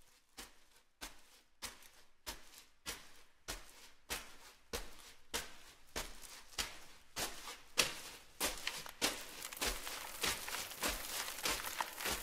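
Rhythmic percussion: sharp strokes with a hissing tail, about one and a half a second, growing steadily louder, with extra strokes filling in between them over the last few seconds.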